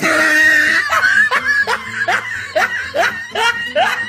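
A person laughing: a quick run of short syllables, each dropping in pitch, about two or three a second.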